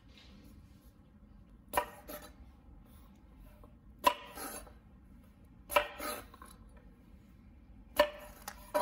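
Chef's knife cutting mini sweet peppers on a wooden cutting board: a sharp knock of the blade on the board about every two seconds, each followed by a softer scrape, with two knocks close together near the end.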